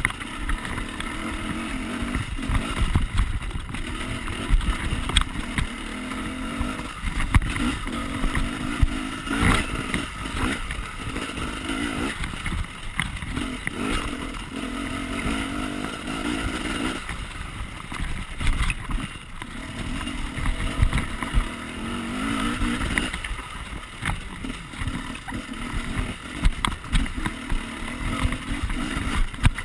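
Husaberg enduro motorcycle ridden along a rough forest trail, its engine revving up and easing off again and again. There are frequent knocks and rattles from the bike jolting over the ground, over a low rumble.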